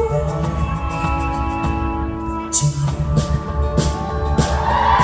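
Live band playing an instrumental passage: strummed acoustic guitar over held notes from cello and keyboard, a steady bass and a light, regular percussion tick. Near the end the audience begins to cheer and whoop.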